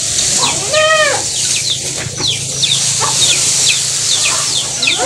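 A goat bleats once, about a second in: a single call that rises and falls. Behind it, short high falling peeps from birds repeat several times a second.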